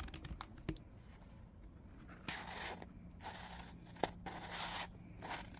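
Plastic lid being worked back onto a large plastic jar: a few faint scraping strokes from about two seconds in, with a light click or two.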